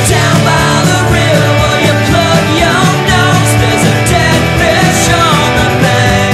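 Rock band recording: drums, bass and guitars playing at a steady beat, with singing over the top.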